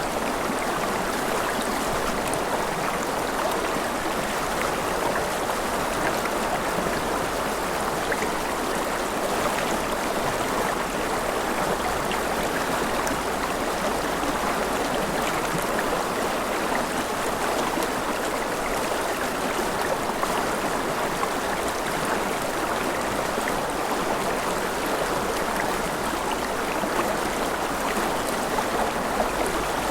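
Forest river flowing steadily over rocks, a continuous rush of water with fine splashing and gurgling.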